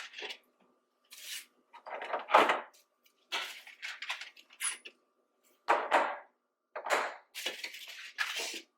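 Eggs being handled and set into a clear plastic lidded egg container: a run of about eight short clatters and rattles of shell on plastic, with silence between them.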